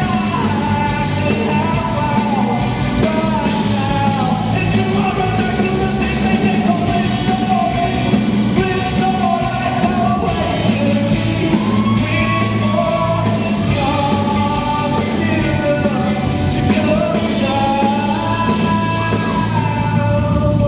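Live pop-rock song: a singer carries the melody over a band with a steady bass line.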